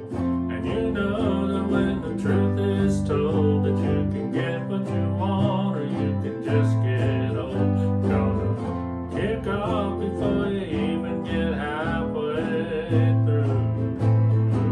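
Instrumental passage played by a small ukulele group: strummed ukuleles over a plucked bass line, with a melody line on top.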